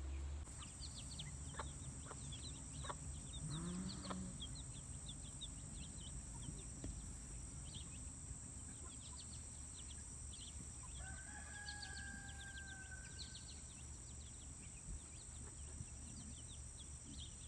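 Chickens clucking faintly, with many short high bird chirps throughout and a steady high insect whine beneath.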